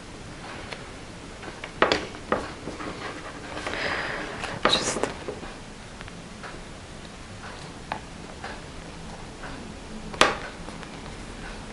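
A printed paper cutout being handled and pressed together by hand: soft rustling and sliding of paper with a few sharp clicks, the loudest near two seconds in, around five seconds in and near ten seconds in.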